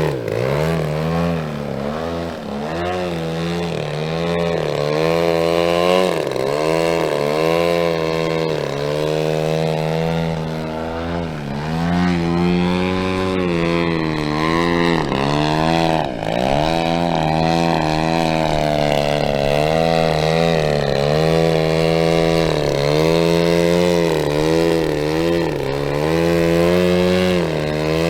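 Desert Aircraft DA-120 twin-cylinder two-stroke gas engine of a giant-scale RC Yak 54 aerobatic plane in flight, its pitch swooping up and down again and again.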